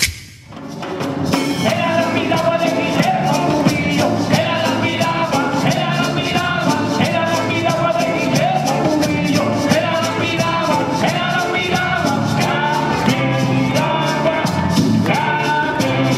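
Music with singing and a steady drum beat, fading in just after the start.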